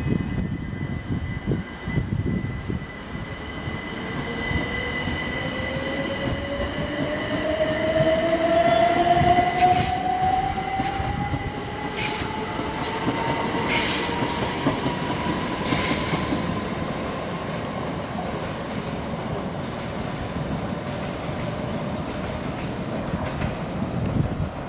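A train moving off, its whine climbing steadily in pitch as it gathers speed over a constant rumble of wheels on rails. Brief high-pitched squeals or crackles come several times midway through.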